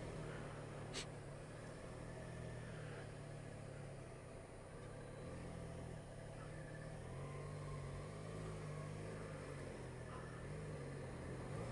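Motorcycle engine running at low revs, a steady low hum that rises and falls a little, over road and traffic noise as the bike creeps through slow traffic. One sharp click about a second in.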